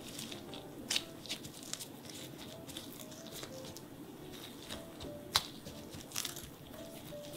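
Parchment paper rustling under gloved hands as cookie dough balls are set down on a lined baking tray, with scattered light clicks and one sharper click about five seconds in. Soft background music plays underneath.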